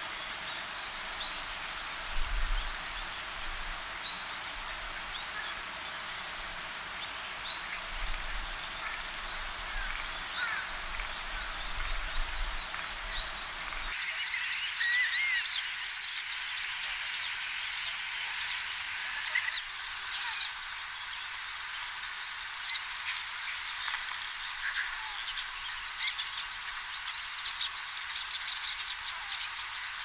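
Black-winged stilt calling: sparse, short, sharp notes over steady background noise. About 14 s in, a different recording starts, with black-tailed godwits giving many short, sharp calls, some in quick runs.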